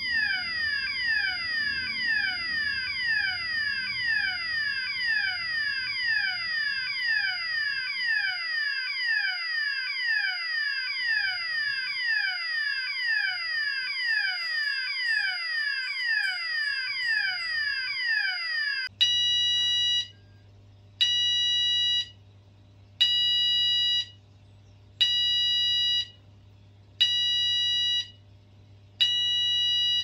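Fire alarm sounders going off with a repeating falling sweep tone, just under two sweeps a second. About nineteen seconds in, the sound switches to an intermittent tone, pulsing on and off about once every two seconds.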